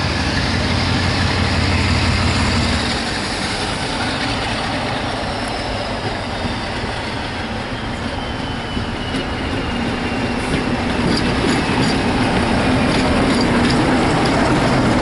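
Diesel locomotive approaching and running past hauling passenger coaches: steady engine and wheel-on-rail noise, with a faint whine that falls slowly in pitch and ticks from the wheels in the second half.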